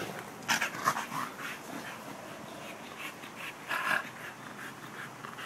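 Pit bulls at play, panting, with a few short, breathy bursts about half a second, a second, and nearly four seconds in.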